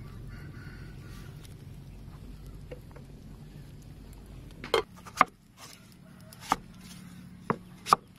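A large pot of oxtail soup boiling with a steady low bubbling rumble. About five seconds in, this gives way to a knife knocking sharply on a wooden chopping board about five times as it slices green papaya.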